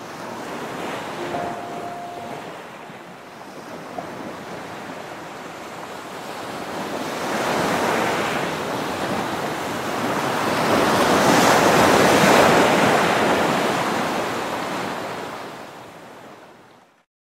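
Ocean waves surging and washing in, swelling twice to a peak, then fading out to silence just before the end.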